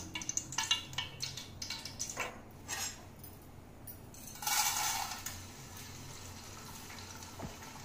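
A few light clinks of bowl and spoon, then about halfway a brief sizzle as edible gum (dink) is tipped into hot ghee in an aluminium pot to fry. The sizzle settles to a faint steady hiss.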